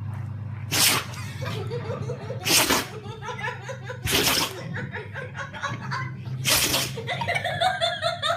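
A dog sneezing four times, a couple of seconds apart, each a short sharp burst, with people laughing in between.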